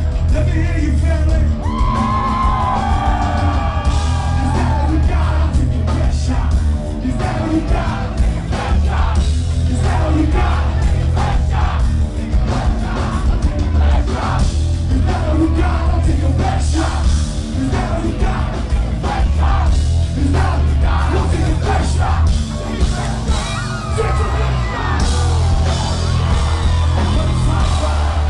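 Live rock band playing loud, with yelled, sung vocals over heavy drums and bass guitar, filling a large hall.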